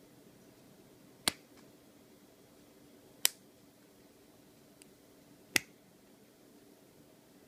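Three sharp clicks about two seconds apart, with a fainter one between the last two, from the metal parts of a vape bell tank being worked open and closed by hand.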